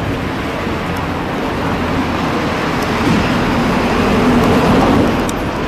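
Steady low rumbling noise that grows louder about three seconds in and eases off near the end.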